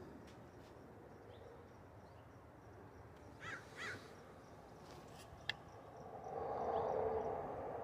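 Two short bird calls, crow-like caws, a bit past the middle over a faint background, followed by a single sharp click and a swell of noise near the end.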